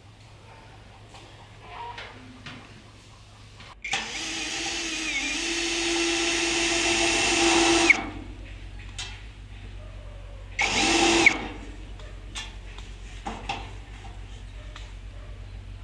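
Electric power drill running in two goes: a long run of about four seconds that grows louder as it goes and cuts off suddenly, then a short burst of under a second. Light knocks and clicks come in between.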